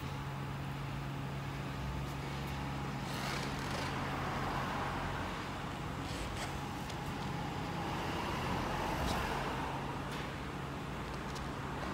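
A steady low mechanical hum of workshop background noise, with faint hiss and a few light clicks.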